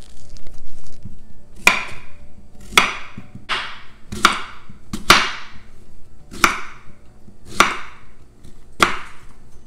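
A chef's knife slices through a raw sweet potato onto a wooden cutting board. There are eight crisp cuts, roughly one a second.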